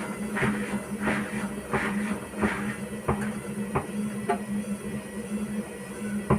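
Hotpoint-Ariston washing machine running with a steady motor hum, the drum giving a regular swishing knock about every 0.7 seconds, then a few separate sharper knocks in the second half. This is the heavy knocking the machine makes on spin.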